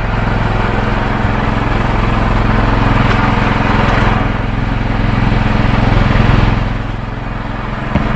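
A small engine on the fishing boat running steadily, a constant low hum under a noisy rush that grows louder mid-way and eases off near the end.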